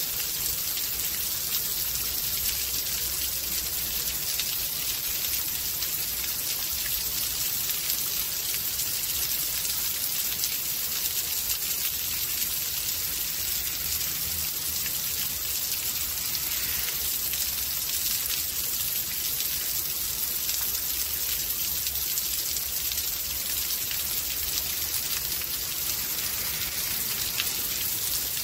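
Steady rain falling, a dense, even hiss of countless small drop impacts, with a low rumble underneath.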